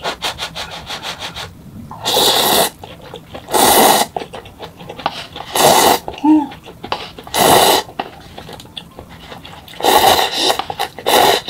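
Cup ramen noodles and broth being slurped: six loud slurps, one every one to two seconds, after a run of quick wet chewing clicks at the start.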